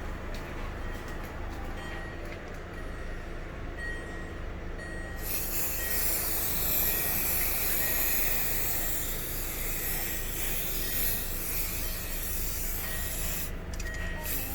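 Steady low rumble of a Land Rover Discovery Sport's cabin. About five seconds in, a loud hiss joins it and holds until a brief break near the end.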